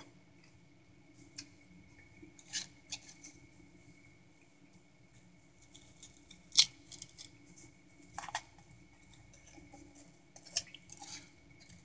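Eating utensil clicking and scraping against a plate in scattered, irregular light taps, over a faint steady hum.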